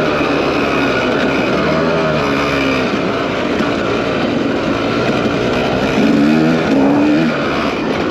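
Dirt bike engine revving up and down as it is ridden hard, its pitch repeatedly rising and falling over a steady rush of noise, a little louder about six seconds in.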